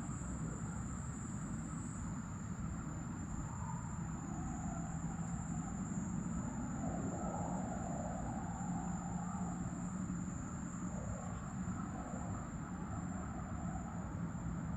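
Night ambience: crickets trilling in one high, unbroken tone throughout, over a steady low rumble of distant traffic.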